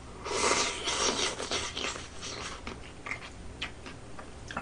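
Noodles slurped from a bowl in one noisy, rasping slurp lasting about a second and a half, followed by quieter chewing with small clicks.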